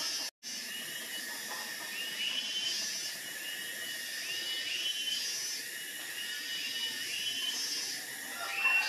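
Outdoor ambience of repeated high chirping calls that slide downward, in clusters about a second apart, over a steady hiss. The sound cuts out for an instant just after the start.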